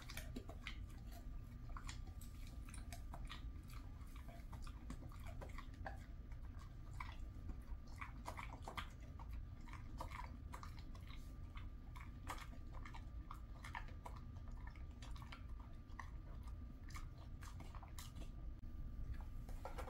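A Jindo dog chewing an elephant fish treat: irregular crunches and clicks of its teeth on the hard chew, several a second.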